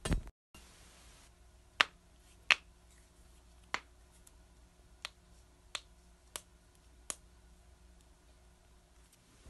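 Finger knuckles cracking: seven sharp pops spread a second or less apart, the first two the loudest, after a brief thump at the start.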